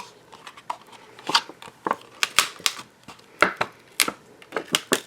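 Clear acetate card box being folded and assembled by hand: a quick, irregular run of crisp plastic clicks and snaps as the stiff sheet is creased and its flaps pushed into place.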